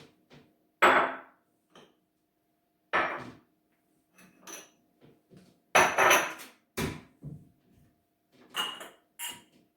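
Kitchen cupboard doors and household items knocking and clattering as they are handled and set down. The sounds come as separate knocks at uneven gaps, the loudest about a second in and around six seconds in.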